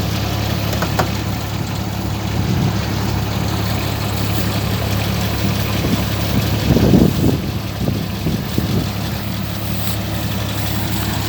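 Kubota DC-35 combine harvester's diesel engine running steadily, with a brief louder, irregular burst of sound about seven seconds in.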